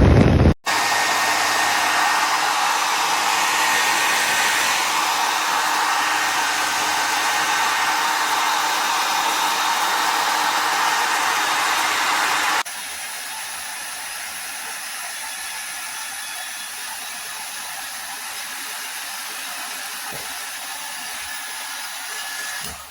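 Remington D1500 compact 2000-watt travel hair dryer running with a steady blowing whoosh. About twelve seconds in it drops abruptly to a noticeably quieter steady blow.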